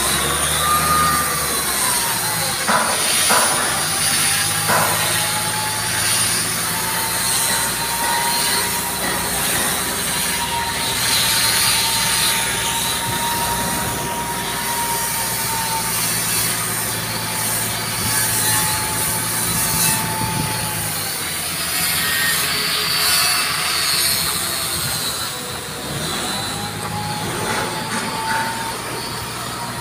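Kato SR-250SP-V rough-terrain crane running on a test after a new starter and battery relay were fitted: a steady low engine hum under a high whine that drifts slowly up and down in pitch.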